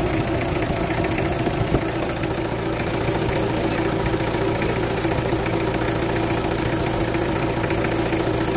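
Mitsubishi 4D56 four-cylinder diesel engine idling steadily, heard close up through the open radiator filler while the freshly flushed cooling system is topped up with water.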